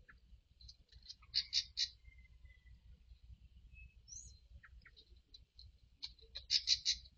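Bird calls: a quick run of short, sharp, high notes about a second in and another near the end, with scattered fainter chirps between.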